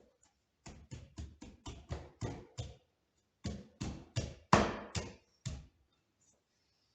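Sharp knocks on wood in two quick runs: about eight taps at roughly four a second, a short pause, then about six more, the loudest about four and a half seconds in.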